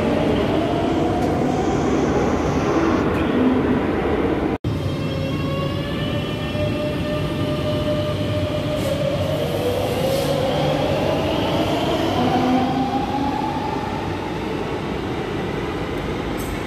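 Madrid Metro electric train running along the platform, its traction motors whining in a pitch that rises slowly as it picks up speed, over steady wheel-and-rail rumble. The sound cuts out for an instant about four and a half seconds in.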